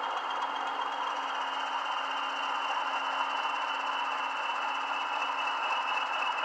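Recorded Class 20 English Electric diesel engine sound from the DCC sound decoders in a pair of Bachmann Class 20/3 models, running steadily through small 20x20x7 mm megabass speakers.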